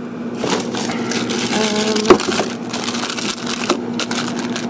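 Plastic-wrapped frozen food packages crinkling and rustling as they are handled and stacked onto a freezer shelf, with a sharp knock about two seconds in.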